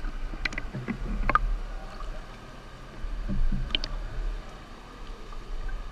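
Pool water sloshing and lapping against a camera held at the surface, over a low rumble, with a few short splashes.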